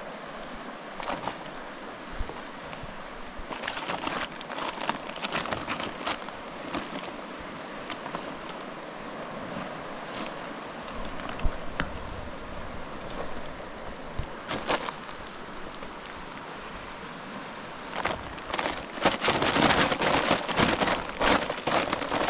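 Steady rush of a fast river, with intermittent rustling and clicking as a cast net with lead sinkers is untangled and handled on the rock, the handling noise growing louder and denser near the end.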